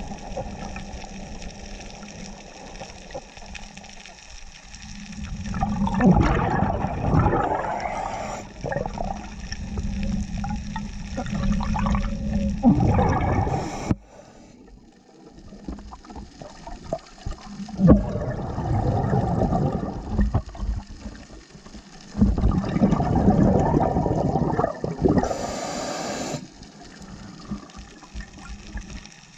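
Scuba regulator heard from underwater: bursts of bubbling from a diver's exhalations, each lasting two or three seconds and coming every few seconds, over a low steady hum.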